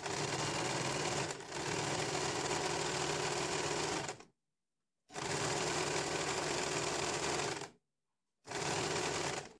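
Electric household sewing machine stitching a straight seam, running in three spells of about four, three and one second with short stops between.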